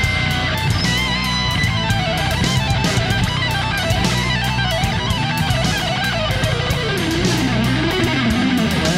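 Background rock music: an electric guitar lead with bending, wavering notes over a steady beat and bass.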